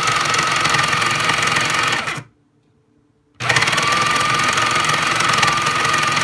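Breville Smart Grinder Pro's burr grinder motor running with a steady high whine, stopping and winding down about two seconds in, then starting again about a second later and running on.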